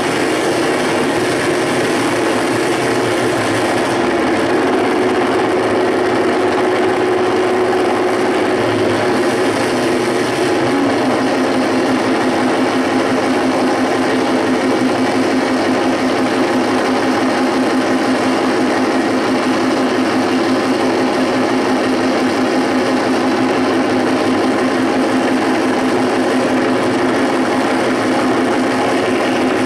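Live noise music from a large rig of chained effects pedals: a loud, dense wall of noise over a droning tone. About eleven seconds in the drone drops a little in pitch and takes on a fast, stuttering pulse.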